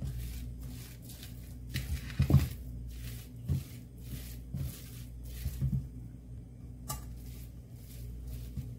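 Silicone spatula scraping and mashing crumbly coconut barfi mixture against a nonstick pan in repeated strokes, about two a second, with a few dull knocks of the spatula on the pan, the loudest about two seconds in.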